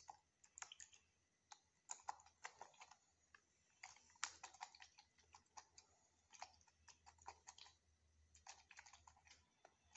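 Faint, irregular light clicks and taps of a thin disposable plastic cup being swirled on a wooden tabletop to mix cleaner drops into water.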